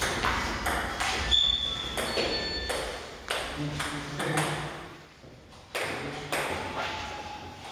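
Table tennis ball clicking off bats and the table in a doubles rally, about a stroke a second, stopping about three and a half seconds in; after a short lull the ball clicks again a few times near the end.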